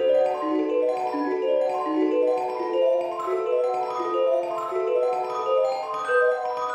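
Background music: a light melody of quick, short notes on mallet percussion.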